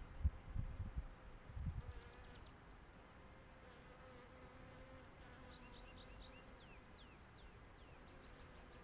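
Wind buffeting the microphone in low thumps for the first two seconds, then the steady buzz of a flying insect, a bee or fly. Short high chirps repeat over the buzz.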